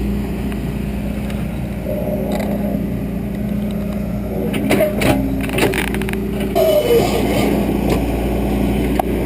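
A John Deere backhoe's diesel engine running steadily under digging work, with several sharp knocks about five to six seconds in and another near the end.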